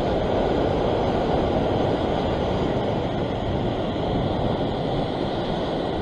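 Ocean surf washing against a rock ledge, a steady rushing noise with no breaks.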